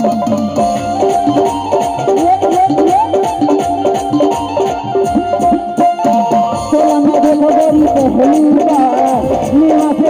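Live Chhattisgarhi folk stage music without singing: a keyboard melody over dholak drumming and a shaker rhythm.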